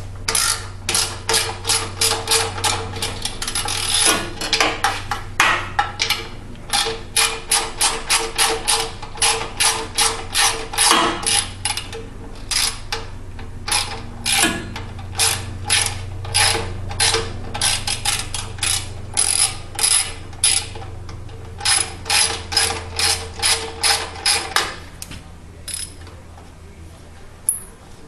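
Hand ratchet socket wrench clicking steadily as a small bolt is backed out of an engine cover, several clicks a second with short pauses, stopping near the end. It is a fine-toothed ratchet, which the owner thinks is 72-tooth.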